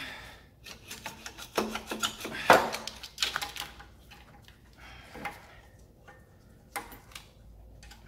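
Irregular clicks, clinks and rubbing of gloved hands handling parts and wiring in a car's engine bay, with a sharper knock about two and a half seconds in and another near the end; the engine is not running.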